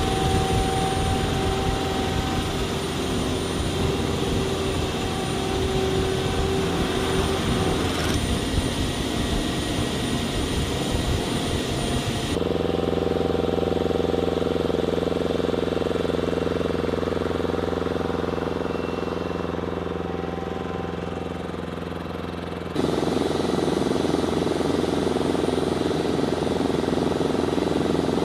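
Steady drone of aircraft and ground-support machinery on a jet flight line, with a few steady whining tones. The tone and mix change abruptly twice.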